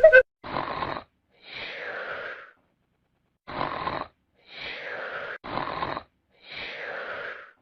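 Snoring: three slow breath cycles, each a short rasping breath followed by a longer, wheezing breath that falls in pitch.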